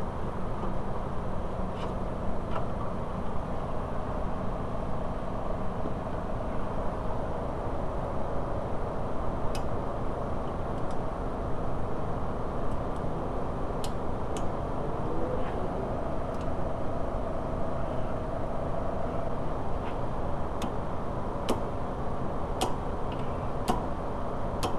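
Steady low background rumble with scattered light clicks and ticks, several of them in the second half, from metal parts being handled during parking brake cable work.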